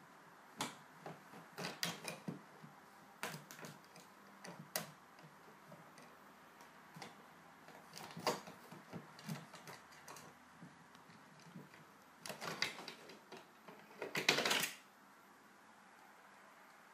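A drawer being pawed and pulled at by a Bengal cat: irregular clicks and knocks in scattered clusters, with a longer, louder rattling scrape about fourteen seconds in.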